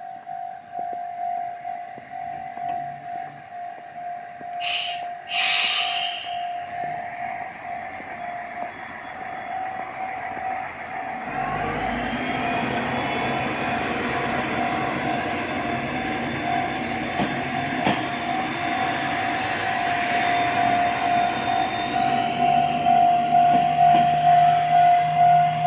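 A Japanese level-crossing alarm rings steadily throughout. A diesel railcar's engine comes up about eleven seconds in and keeps running under the bell as the car pulls out, and there are two short hissing bursts about five seconds in.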